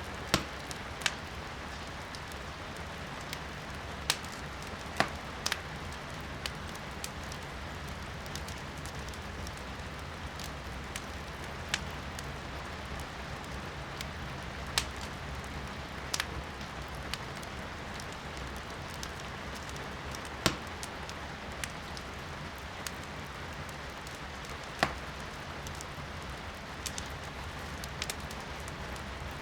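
Firewood crackling and popping in a fireplace, with sharp irregular snaps over a steady hiss of rain heard from indoors.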